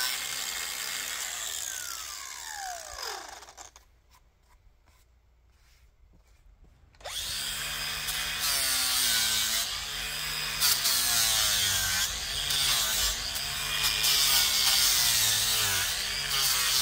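Angle grinder working a cedar carving. It is switched off about three seconds in and winds down with a falling whine. After a few seconds of near silence it starts again abruptly and grinds the wood, its pitch dipping and rising as it is pressed into the cedar.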